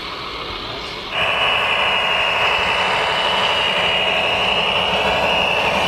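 A vehicle motor starts running hard about a second in and keeps going steadily, with a high whine over a rushing mechanical noise.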